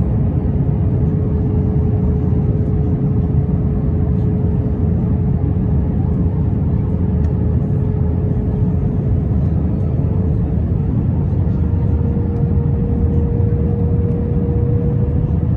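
Airbus A321 cabin noise in flight, heard from a window seat over the wing: a steady deep rumble with a steady engine hum that rises slightly in pitch about ten seconds in.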